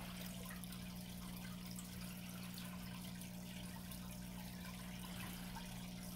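Aquarium water trickling and air bubbles rising, with small drips and a steady low hum underneath.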